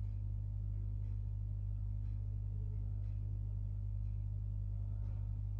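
A steady low hum with faint room tone and no other distinct sound.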